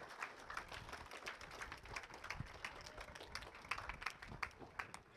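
A small audience clapping: scattered separate hand claps rather than a dense roar, which thin out and stop near the end.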